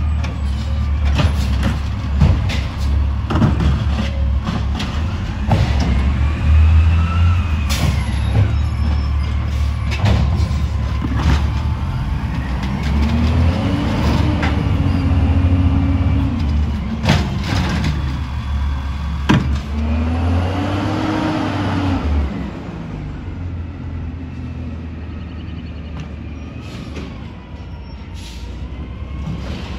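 The diesel engine of a 2011 Autocar refuse truck with an Amrep body runs heavily, revving up and back down twice as it drives the hydraulics, with scattered knocks and clanks. It settles to a quieter idle about 22 seconds in.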